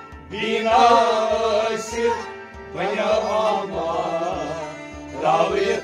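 Kashmiri Sufi song: a male singer's voice in long, wavering melodic phrases, three of them with short breaks between, over a steady low drum beat.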